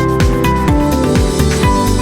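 Electronic dance music with a steady kick-drum beat, about two beats a second, and synth notes over it.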